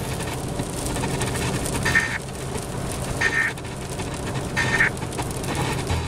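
Emergency Alert System end-of-message code played over a car radio: three short, buzzy digital data bursts about 1.3 seconds apart, over a steady low hum.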